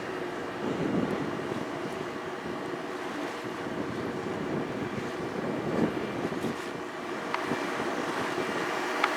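Ferry's diesel engine running, a steady drone with several held tones, mixed with wind. There are a couple of brief ticks near the end.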